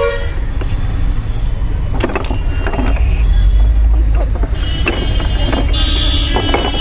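Glass marble-stoppered (Codd-neck) soda bottles knocking and clinking against each other in an ice box as hands rummage and lift one out, a handful of separate knocks. Under it, a steady low rumble of road traffic that swells in the middle.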